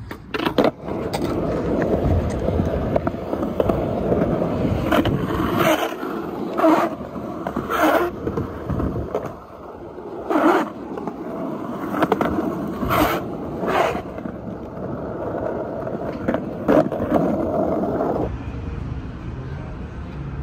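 Skateboard wheels rolling on skatepark concrete, broken by about eight sharp clacks of the board hitting the ground. The rolling stops a couple of seconds before the end.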